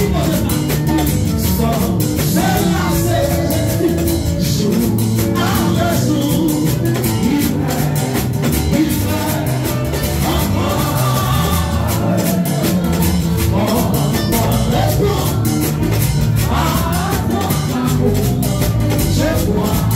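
Upbeat church worship music with a fast, steady beat and voices singing, loud throughout, played for dancing.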